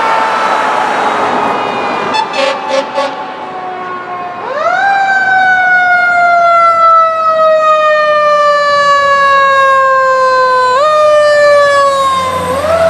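Fire engine siren wailing, falling slowly in pitch at first, with three short blasts a couple of seconds in. About four seconds in, it winds up quickly and slides slowly down in pitch, then jumps up again twice near the end as the engine comes close.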